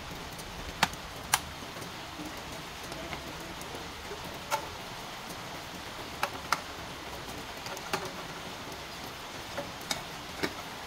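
Light clicks and knocks, about nine spread over the whole stretch, as eggs are set into a stainless steel cooking pot and its metal lid is put on near the end. A steady hiss runs underneath.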